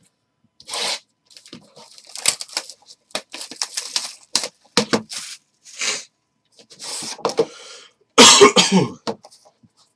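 Cardboard and plastic packaging handled on a tabletop: a sealed card box's sleeve is slid off and its wrap crackles and rustles, in scattered short clicks and crinkles between noisier rustling bursts. The loudest rustle or burst comes about eight seconds in.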